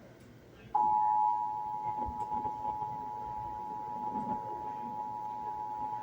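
Emergency Alert System attention signal: two steady tones sounding together, the EAS two-tone alert that announces a required monthly test. It starts abruptly about a second in and holds unbroken.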